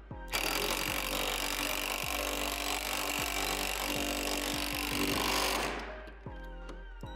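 Cordless power driver running nuts down onto the bolts of a steel backboard bracket. It runs continuously for about five seconds, then winds down and stops.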